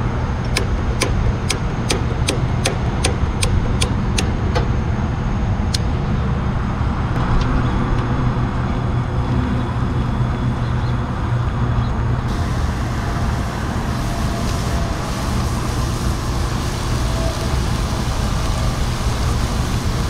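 A long-nosed lighter clicking repeatedly at a two-burner propane camp stove, about two clicks a second for the first six seconds, over a steady rumble of wind and road traffic. About twelve seconds in, a hissing sizzle starts as the food cooks in a hot cast-iron skillet.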